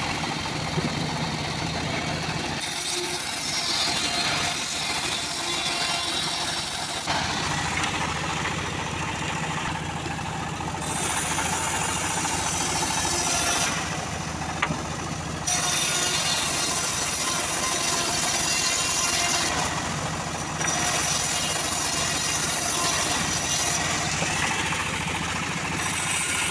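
Engine-driven homemade bandsaw mill running steadily while its blade saws lengthwise through a teak log into boards. The sound changes abruptly every few seconds.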